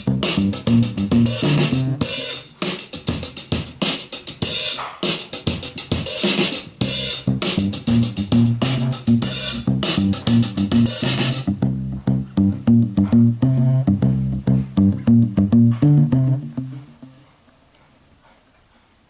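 A homemade portable boombox playing a GarageBand loop mashup at moderate volume: a steady drum beat over a repeating bass line. Past the middle the drums drop out and the bass line carries on alone, then the music fades out shortly before the end.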